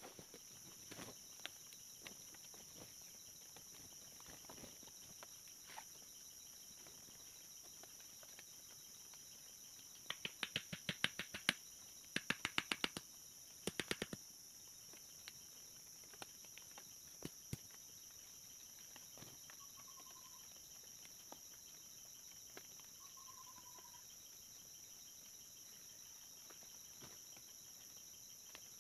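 Tropical forest ambience: a steady high-pitched drone of insects, with a bird giving a short falling whistle every few seconds in the second half. Around the middle there are three short runs of rapid clicking.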